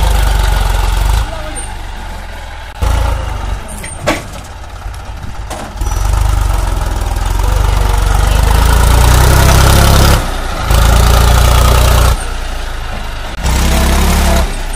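Tractor diesel engines running hard while hauling a loaded trolley through soft soil. The loudness jumps up and down several times, loudest in the middle.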